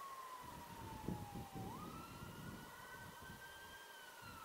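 Faint emergency vehicle siren wailing: a tone that falls slowly, jumps back up about a second and a half in, then climbs gently and falls again.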